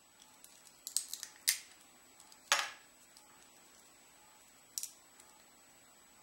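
Sharp snaps and crackles of PLA support material being broken off a 3D-printed part by hand: a few quick clicks about a second in, a louder crack at about two and a half seconds, and one more snap near five seconds.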